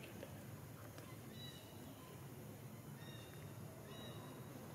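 Faint forest ambience: a steady low hum with a few short, high bird chirps scattered through it.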